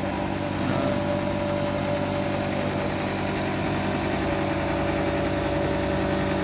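Steady drone of a small engine running, with a steady higher hum joining about a second in.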